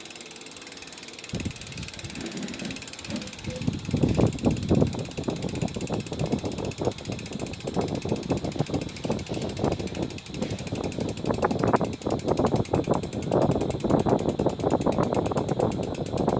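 SRAM X9 bicycle hub's freewheel ratcheting as the wheel spins: a fast, dense run of pawl clicks that starts about a second in and grows louder about four seconds in.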